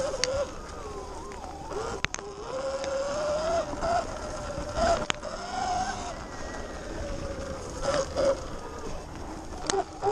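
Sur-Ron Light Bee X electric dirt bike riding along a dirt trail: its electric motor whines, rising and falling in pitch with the throttle, over rushing tyre and wind noise. A few sharp knocks come as the bike bounces over bumps.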